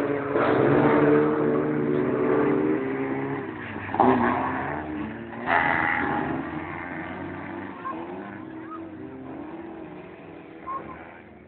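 Engines of folkrace race cars running hard around the track, the sound fading steadily as the field moves away. There are two brief louder bursts, about four and five and a half seconds in.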